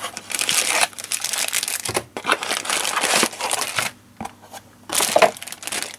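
Plastic bags and cardboard packaging crinkling and rustling in several handled bursts, with short pauses, as a small box is opened and its bagged contents pulled out.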